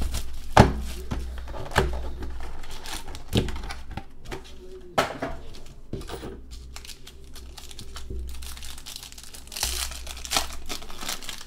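Plastic shrink wrap and foil trading-card pack wrappers crinkling and crackling as a card box is unwrapped and its packs handled, with sharp crackles every second or two. About ten seconds in, a foil pack is torn open.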